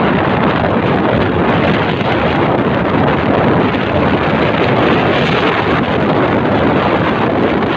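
Steady wind noise on the microphone of a Honda XRM 125 Fi motorcycle at riding speed, with the bike's engine and road noise mixed in.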